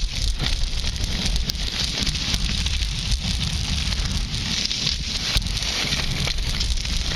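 Skis sliding and scraping over packed snow, a continuous hiss full of small crackles, with wind rumbling on a camera microphone mounted close to the skis.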